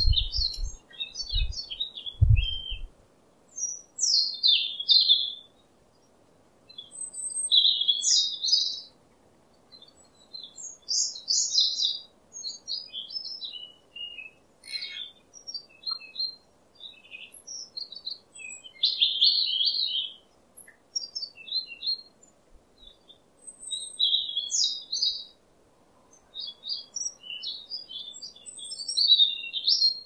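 Several small songbirds chirping and singing in short, high phrases that overlap and come in clusters with short gaps between them. A few low thuds sound in the first three seconds.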